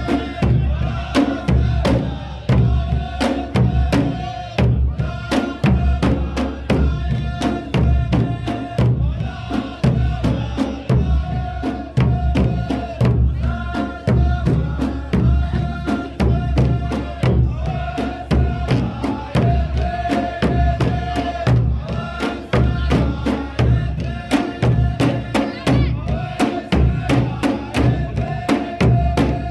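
Saudi ardah folk performance: drums beaten in a steady, fast rhythm under a group of men chanting sung lines in unison, the phrases repeating every couple of seconds.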